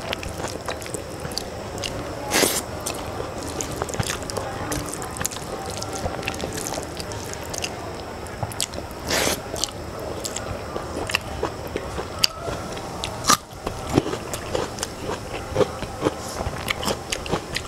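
Fingers mixing rice and curry on a steel plate: wet squishing and light scraping, with chewing and a few sharper clicks.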